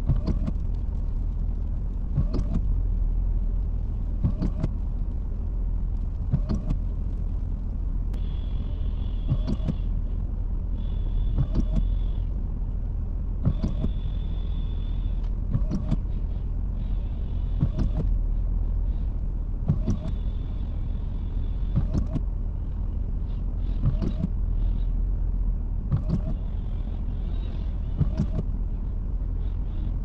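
Pickup truck engine running steadily, with a short sharp knock repeating about every two seconds and a faint high tone coming and going partway through.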